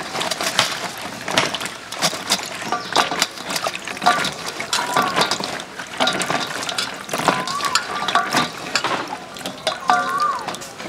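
Okra pods being washed by hand in a steel bowl of water: irregular splashing and sloshing as the pods are swished and lifted, with pods rubbing and knocking together.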